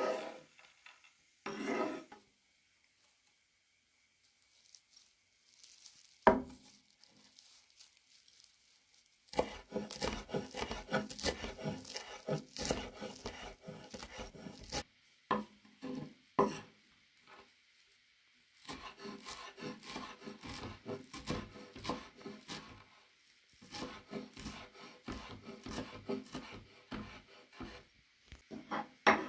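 Large kitchen knife rapidly chopping fresh parsley on a thick wooden cutting board: runs of quick blade knocks on the wood lasting several seconds, with short pauses between. Near the start the blade scrapes chopped walnuts across the board, followed by a quiet stretch broken by a single knock.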